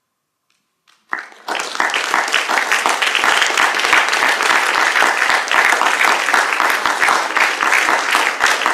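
Theatre audience breaking into applause about a second in, then dense, steady clapping.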